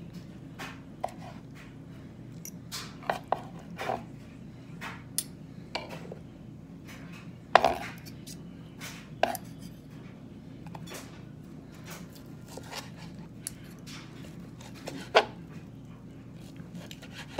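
Kitchen knife cutting food on a cutting board: irregular light taps of the blade on the board, with a few sharper knocks scattered through, over a steady low hum.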